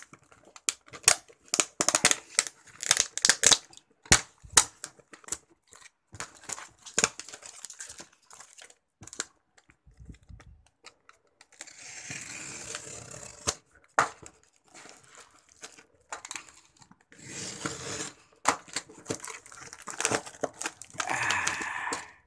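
Snap-off box cutter slicing through packing tape and paper wrapping on a parcel, with quick crackles and clicks of tape and paper, then three longer rips as the yellow wrapping paper is torn open.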